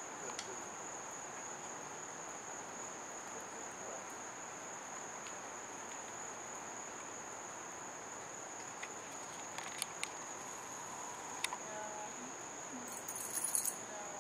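Steady high-pitched drone of insects calling in summer, holding one unbroken tone, over faint outdoor background noise. A few brief faint clicks come about two-thirds of the way in, and a short rustle near the end.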